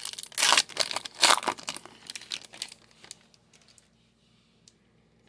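Crinkly wrapper of a baseball card pack being torn open and crumpled by hand in a burst of rustling that dies away about three seconds in.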